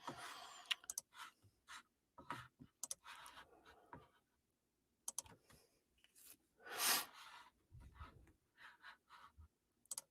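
Faint scattered clicks and soft rustling close to the microphone, with one louder short hiss about seven seconds in.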